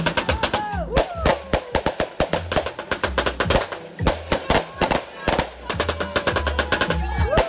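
Music with a fast, driving drum beat and a recurring deep bass pulse.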